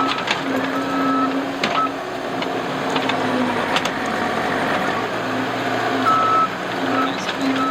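Case TR270 skid steer's diesel engine running steadily under load while it spreads and compacts soil, with its reversing alarm beeping in short steady tones as it backs up, shortly after the start and again near the end.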